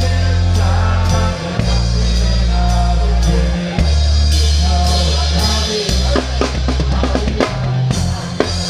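Live rock band playing, with the drum kit up front: kick, snare and cymbals over long held low bass notes. The drum strikes come thicker from about six seconds in.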